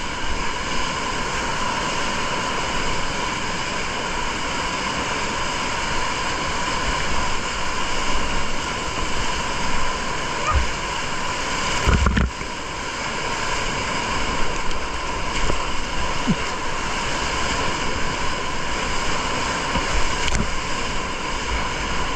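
Steady roar of big-water whitewater rapids rushing around a kayak, heard close from a camera on the boat, with splashing as waves break over the deck. About twelve seconds in, a wave buries the bow and camera with a loud thump, and the sound goes briefly muffled.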